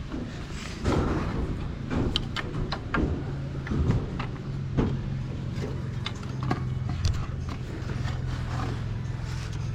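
Construction-site noise: a steady motor hum with irregular knocks and clatter scattered across it.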